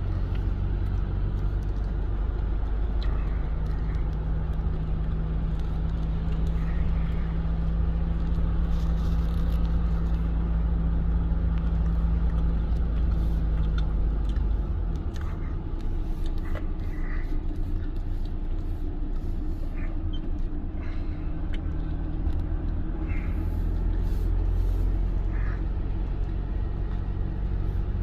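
Car cabin noise while driving: a steady drone of engine and tyres on the road. The deep engine tone eases off about halfway through and builds again towards the end, with a few faint ticks over it.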